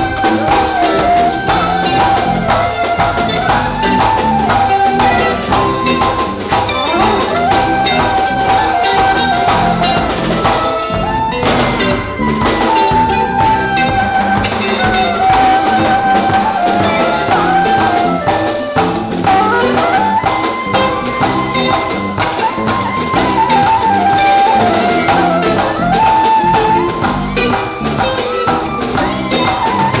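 Live band playing African music: electric guitar and drum kit with percussion keeping a steady beat, under a lead melody line that holds notes and slides between them.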